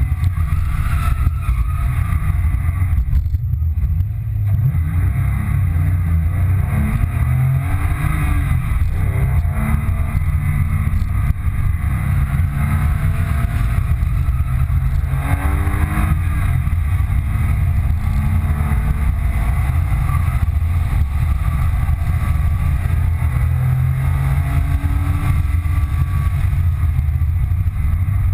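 2005 Porsche 997 Carrera 2's 3.6-litre flat-six under hard track driving, heard from inside the cabin, its revs rising and falling through acceleration, lifts and gear changes.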